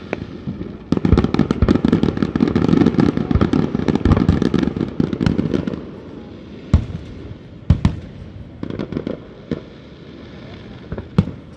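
Aerial fireworks shells bursting. A dense, rapid run of bangs and crackling lasts about five seconds, then single booms follow about once a second.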